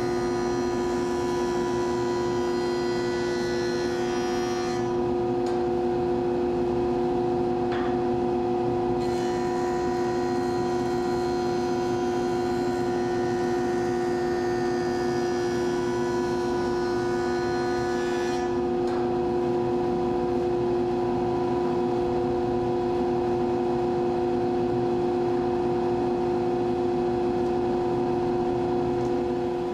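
Jointer running steadily with a constant motor-and-cutterhead hum as holly board edges are jointed. A higher hiss above the hum drops out about five seconds in, returns about four seconds later, and fades again after about eighteen seconds.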